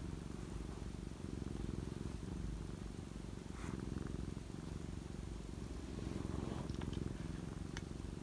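Black-and-white domestic cat purring steadily close to the microphone, a low rumble that gently swells and eases.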